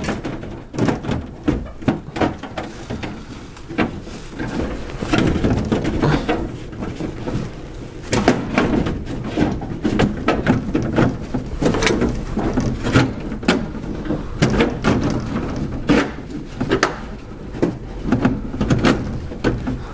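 A part being wiggled and forced out from the underside of a car: irregular knocks, rattles and scrapes as it catches on the surrounding plastic.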